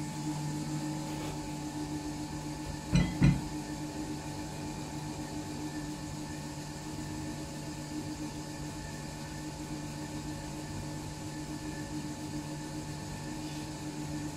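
Electric forge blower humming steadily, driving air into the forge fire while a piece of iron heats. Two sharp knocks about three seconds in, a third of a second apart.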